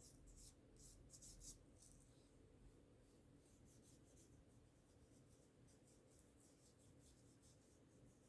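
Faint, quick scratchy strokes of a phone being scrubbed clean by hand, in runs of many short strokes with a brief pause about two seconds in.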